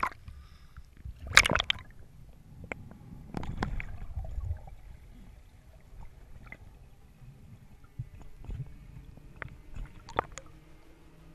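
Water gurgling and sloshing against an underwater camera housing, heard through the camera's own microphone. There is a loud burst of turbulence about a second and a half in, another stretch of churning around three and a half to four and a half seconds, and scattered sharp clicks or knocks later.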